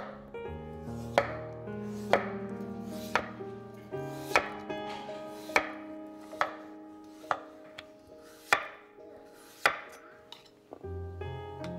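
Chef's knife slicing through raw peeled potatoes and knocking on a wooden cutting board, one sharp cut about every second, over soft background music.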